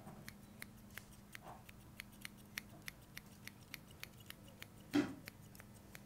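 Steel grooming scissors snipping in a steady rhythm, about three sharp clicks a second, opened and closed near a puppy's legs without cutting so he gets used to the noise. One brief louder sound comes about five seconds in.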